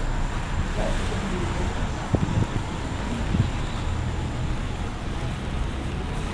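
Heavy rain on a city street, a steady hiss over a low rumble, with a few soft thumps about two and three seconds in.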